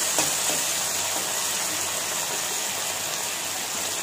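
Okra and chopped tomato sizzling in hot oil in a steel kadai, a steady hiss, with a couple of light clicks of the steel spatula against the pan just after it starts.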